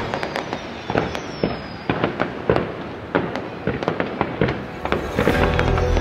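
Aerial fireworks going off in a rapid, irregular series of bangs and crackles, with a high falling whistle twice.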